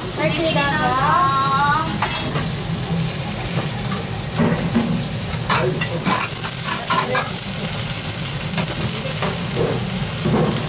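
Gyukatsu, a rare breaded wagyu beef cutlet, sizzling as it sears on a small hot plate, a steady hiss with scattered crackles.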